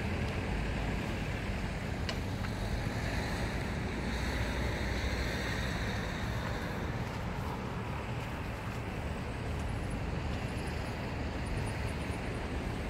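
Steady low rumble and hiss of wind on the microphone, with no distinct events.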